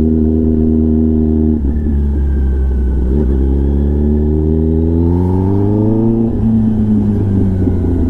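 Kawasaki ZX-10R's inline-four engine through an SC-Project exhaust while riding: a steady note that dips about a second and a half in, then a rising note as it accelerates for about three seconds before the pitch falls back near the six-second mark and holds lower.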